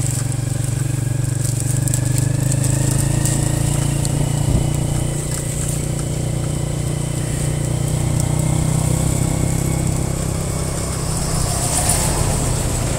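Motorcycle engine of a Cambodian tuk-tuk running steadily under way, with a faint whine that rises slowly in pitch over the first few seconds.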